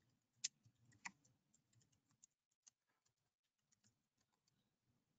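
Near silence broken by a few sharp computer keyboard clicks: two clearer ones within the first second or so, then a scatter of fainter ticks.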